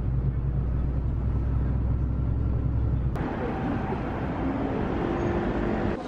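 Street traffic: a steady low engine drone that cuts off abruptly about three seconds in, followed by lighter street noise with a few faint tones.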